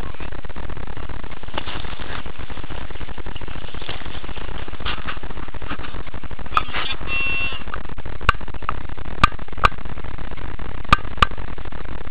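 Steady rushing noise on a small camera riding aboard a kayak on a river, with a short buzzing tone around the middle and about six sharp knocks in the second half.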